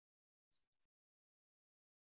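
Near silence, with one faint brief click about half a second in.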